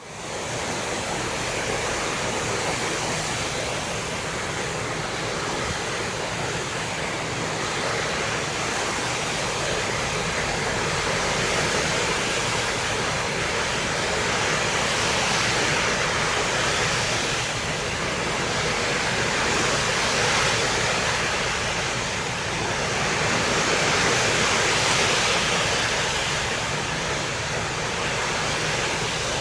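Steady rushing noise of wind and open sea, swelling and easing every few seconds.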